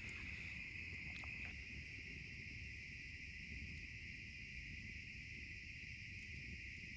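Faint, steady chorus of insects, a continuous high-pitched buzz, over a low rumble, with a couple of faint ticks about a second in.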